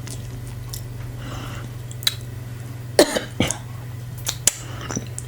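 A person coughing, twice in quick succession about three seconds in, between the small wet clicks of chewing. It is a reaction to the heat of the very spicy soup being eaten.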